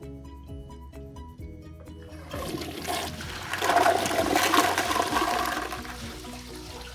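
Toilet flushing: a rush of water begins about two seconds in, is loudest in the middle, then dies down to a quieter running of water near the end. Background music plays throughout.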